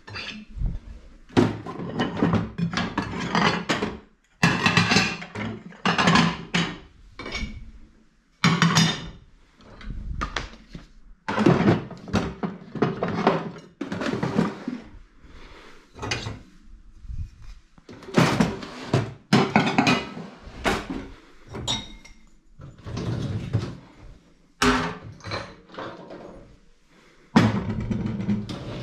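Plates and kitchenware clattering while a dishwasher is unloaded: ceramic plates knocking against the wire racks and each other, dishes set down in a drawer, and the racks rattling. It comes in short bouts of knocks and clinks with brief pauses between.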